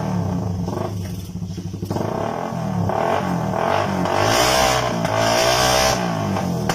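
Honda XRM 125 motorcycle's single-cylinder four-stroke engine being revved up and down in repeated blips through its exhaust pipe, dropping back to a low, rapidly pulsing idle for about a second near the start.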